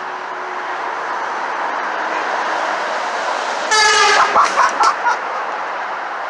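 A passing truck's horn blown: one blast of about half a second, then several short toots in quick succession, over steady road traffic noise.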